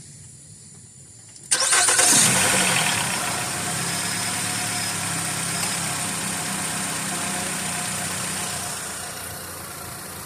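2012 Nissan Rogue's 2.5-litre four-cylinder engine cranking and starting about a second and a half in, loudest as it catches, then idling steadily and a little quieter near the end.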